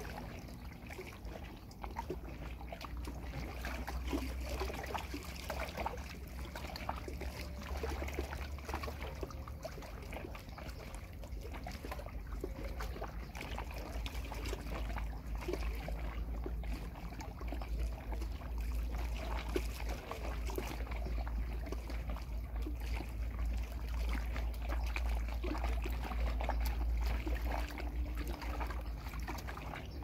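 Lake water lapping and trickling against a pier, full of small irregular splashes, over a steady low rumble.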